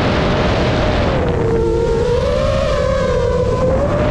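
A 5-inch FPV drone's brushless motors and propellers whine in flight, heard from the onboard camera over a steady rush of prop wash and wind. The whine dips in pitch about one and a half seconds in and climbs back near the end.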